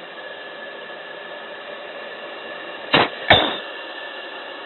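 Steady hiss of an F-16 cockpit heard over the intercom during a hard, roughly 8 G turn. About three seconds in, two sharp, quick breaths burst on the microphone, a short exhale and then a longer gasp: the anti-G straining manoeuvre, bearing down against the G.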